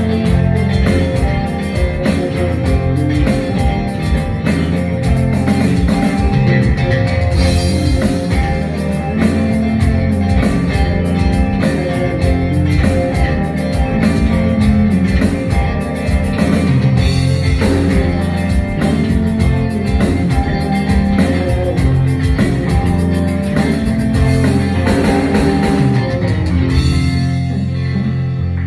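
A live rock band playing: electric guitar, electric bass and drum kit together over a steady beat. Near the end the drumming stops and the band's last notes ring on.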